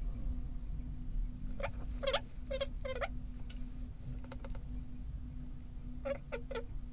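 Short, high-pitched animal squeaks: four in quick succession about a second and a half in, then three more near the end, over a steady low hum.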